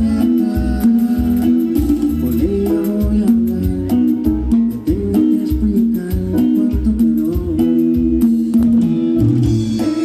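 A live band plays through the stage sound system: electric guitar, bass guitar, drums and keyboards over a steady beat.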